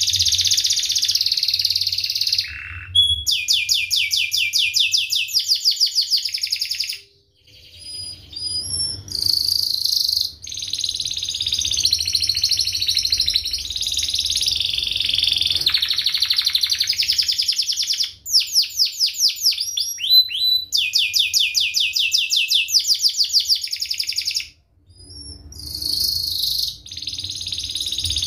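Domestic canary singing a long, dense song of rapid rolling trills and chirps, fast runs of repeated sweeping notes, broken by two short pauses.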